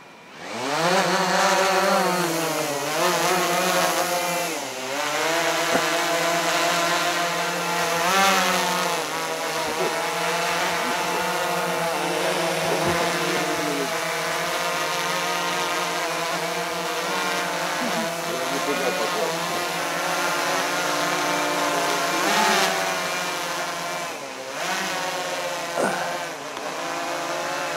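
Quadcopter drone's rotors spinning up and lifting off about half a second in, then a steady buzzing whine that rises and falls in pitch as the drone manoeuvres overhead.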